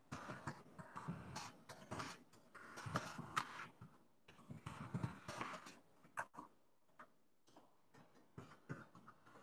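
Faint rustling with small sharp clicks, in short bursts about every two seconds.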